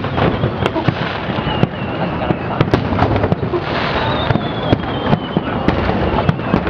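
Fireworks display: a dense run of sharp bangs and crackles from bursting shells, with faint whistles falling in pitch now and then.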